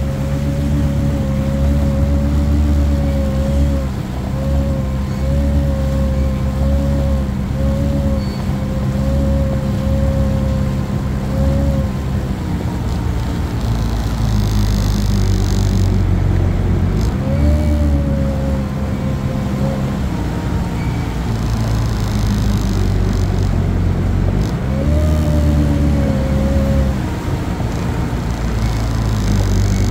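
Kawasaki Ultra 310LX-S jet ski's supercharged four-cylinder engine running at low speed, steady at first, then its pitch dipping and rising again several times as the throttle is eased off and reopened, over the rush of water.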